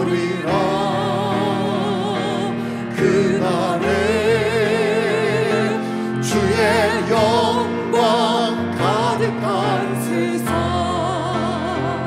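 A man and a woman singing a Korean worship song together, their voices held with vibrato, over grand piano accompaniment.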